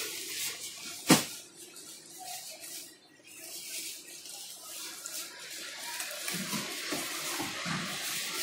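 Plastic-wrapped shirt packets crinkling and rustling as they are handled on a shop counter, with one sharp knock about a second in.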